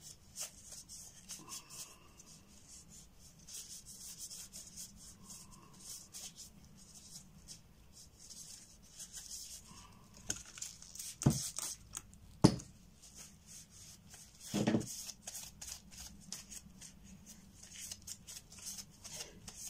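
Black rubber gloves rustling and rubbing as hands handle craft bottles and supplies, with three sharper knocks in the middle as things are picked up and set down on the table.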